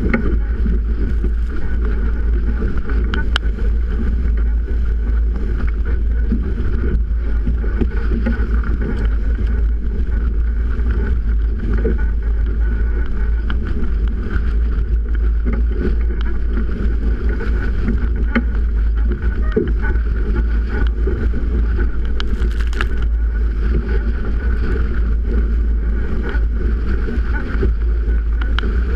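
Strong wind rumbling on the camera's microphone, with water rushing and splashing along the hull of a Melges 24 sailboat heeled over in 30-knot winds. A brief hiss comes about three-quarters of the way through.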